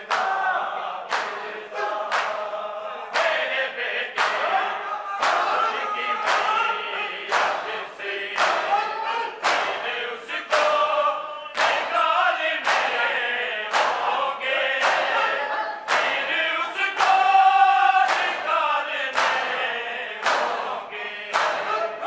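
Group of men chanting a noha, a mournful lament led by a reciter with the crowd singing along. Massed hands slap bare chests in unison (matam), a sharp clap about once a second in time with the chant.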